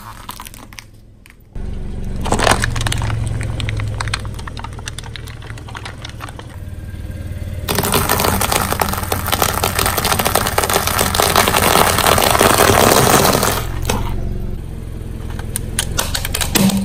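Car tyre rolling over and crushing brittle things over a low rumble: a sharp crack about two seconds in, then a long, dense crackle of eggshells breaking under the tyre for about six seconds, painted eggs and quail eggs among them.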